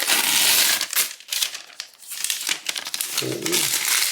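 Packaging being unwrapped by hand, loud crinkling and rustling at first, then irregular rustles and small clicks.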